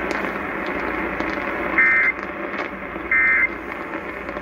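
Weather radio static hissing steadily. About two seconds in, short warbling two-pitch data bursts begin, repeating about every 1.3 seconds with a third starting at the very end. These are the SAME digital end-of-message tones closing a NOAA Weather Radio tornado warning.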